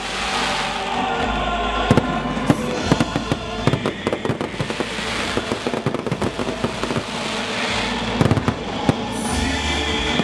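Fireworks display: repeated sharp bangs of bursting shells with crackling between them, over music with held notes.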